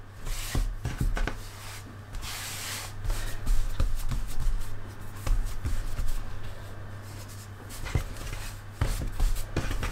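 Hands pressing and patting a ball of pizza dough flat on a flour-dusted granite countertop, with irregular soft thumps and rubbing.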